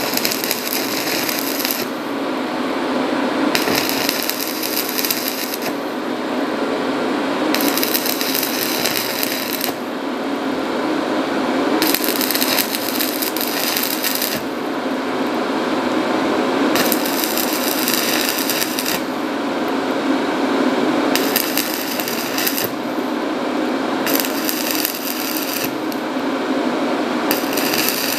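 Stick-welding arc of a 3 mm rutile electrode at 90 amps crackling steadily as it lays a weld on a steel pipe joint. The hiss brightens and eases every couple of seconds.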